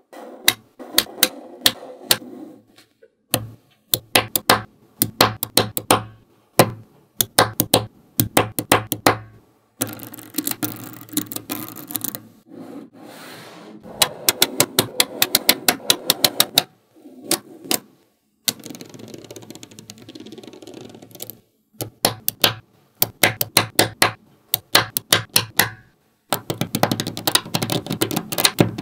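Small magnetic balls clicking as they snap together, in quick runs of sharp clicks with short pauses between the runs.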